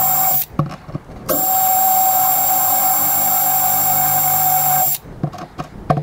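Cordless drill running at a steady speed as it drills into a walnut panel through a jig, with blue tape on the bit. It stops after half a second, with a few light clicks, then runs again for about three and a half seconds and stops about five seconds in, followed by a few clicks and knocks.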